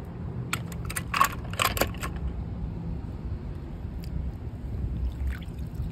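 Small handling noises from die-cast toy cars and a hand moving through the shallow water of a plastic kiddie pool: a handful of short clicks and light splashes, most of them in the first two seconds, over a low steady rumble.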